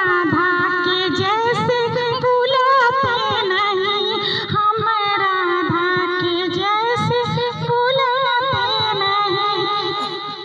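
A woman singing unaccompanied, long held notes with wavering, ornamented pitch; the voice fades away near the end.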